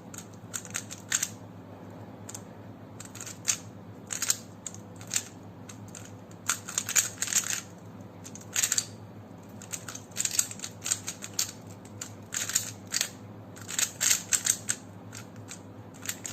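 A plastic Rubik's cube being turned by hand in quick runs of moves: bursts of short clicking and clacking turns, with brief pauses between the runs.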